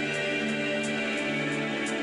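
Soft background music with sustained tones and a plucked-string guitar.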